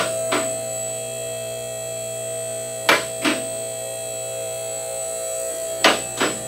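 Electric hydraulic pump motor of a two-post vehicle lift running with a steady hum. Over it come sharp paired clacks, typical of the lift's safety locks on its two posts catching as it rises, three times about three seconds apart.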